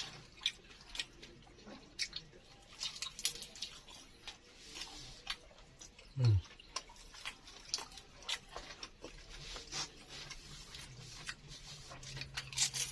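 Mukbang eating sounds: a person chewing crispy fried baklor (egg martabak with vermicelli) close to the microphone, with irregular small crunches, clicks and mouth smacks. A short low vocal hum falls in pitch about six seconds in.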